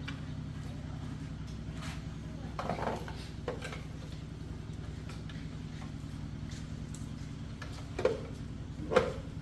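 A few light metallic clinks and knocks, as of tools or small parts being handled, over a steady low hum; the sharpest knocks come near the end.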